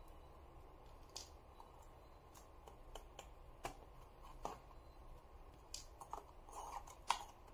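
Faint, irregular clicks and taps of a precision screwdriver and fingertips on the small screws and metal bracket of a laptop touchpad being unscrewed, about ten in all, the sharpest near the end.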